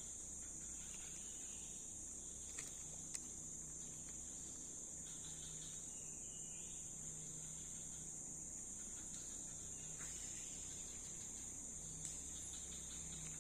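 Steady, high-pitched drone of insects in swamp forest, with a couple of faint clicks a few seconds in.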